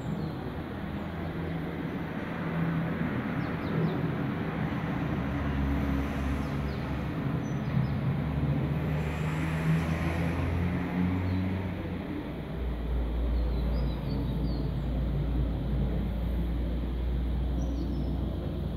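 Outdoor background of steady low traffic rumble, swelling around the middle as if a vehicle goes by, with a heavier low rumble setting in later and faint high bird chirps now and then.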